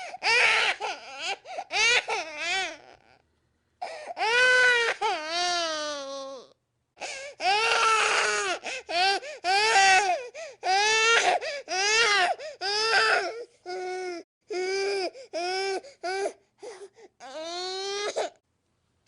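Baby crying in a run of wailing cries that bend up and down in pitch, broken by short gasps for breath, with two brief pauses near the start and in the middle.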